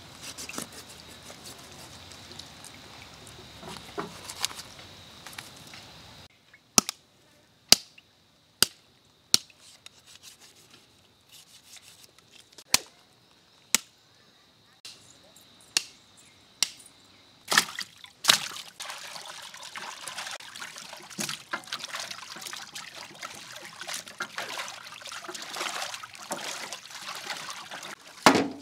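A butcher's knife striking through mutton ribs and bone: about ten sharp separate chops at uneven intervals. After that, water sloshing and trickling as cut pieces of mutton are washed by hand in a large pot of water.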